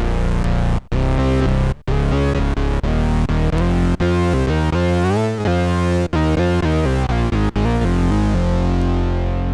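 Electric bass played through an Electro-Harmonix Bass Mono Synth pedal, giving a synth-bass tone as a run of changing notes with a few short breaks. About five seconds in the sound sweeps upward, and near the end one note is held.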